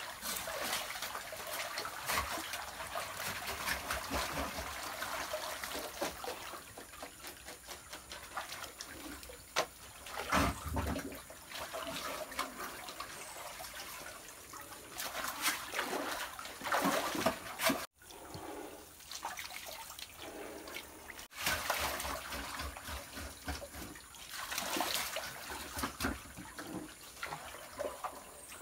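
Muddy water splashing and trickling as people wade and work in a flooded digging pit, with scattered knocks and scrapes of digging tools against stones.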